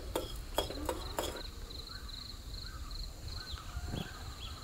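Insect chirping in short, evenly pulsed trills, with a few sharp clicks in the first second.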